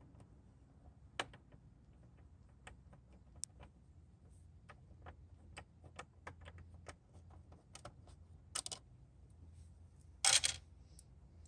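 Light, scattered clicks and taps of plastic parts and small tools being handled while a motorcycle's tail fairing is taken apart. A short, louder crackling clatter comes near the end.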